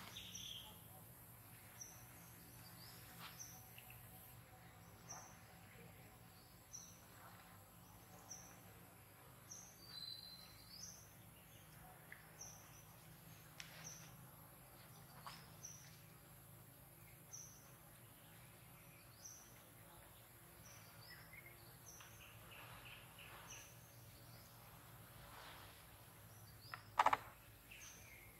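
Faint forest ambience: a short, high chirp repeats about once a second, with a few other high calls among it, and one sharp click near the end.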